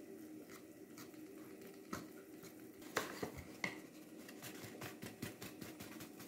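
Wire whisk beating batter in a stainless steel pot, its wires clicking lightly against the pot about twice a second, then three louder metal knocks around the middle as the whisk is knocked against the pot. Quicker light ticks follow in the second half.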